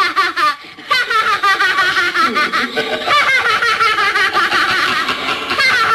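A boy laughing loudly and without a break, a fast run of high-pitched pulses that rise and fall in pitch, starting about a second in after a short pause.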